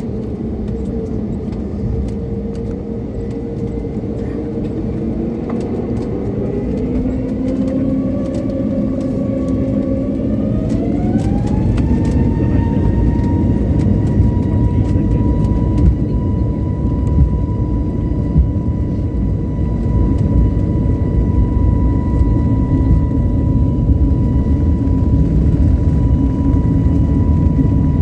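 Airliner jet engines spooling up for takeoff: a whine that climbs for several seconds and then holds at a steady high pitch, over a deep rumble that keeps getting louder as the thrust builds.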